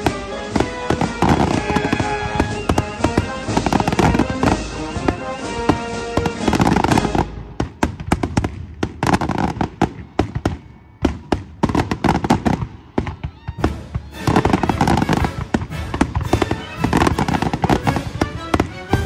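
Fireworks finale: rapid volleys of aerial shells bursting and crackling, with music playing alongside. About seven seconds in, the bursts thin to scattered bangs for several seconds. A dense volley starts again about fourteen seconds in.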